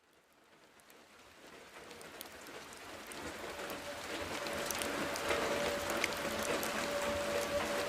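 Fireplace fire crackling, fading in from silence and growing steadily louder, with scattered sharp pops. A faint steady tone comes in about halfway through.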